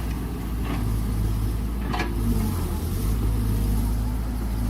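Excavator's diesel engine running steadily with a deep, even drone, and a brief sharper sound about two seconds in.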